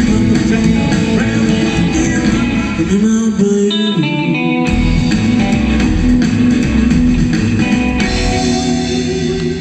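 Rockabilly band music with guitar. About three seconds in, the low end of bass and drums drops out for a brief break under a held note, and the full band comes back in about a second and a half later.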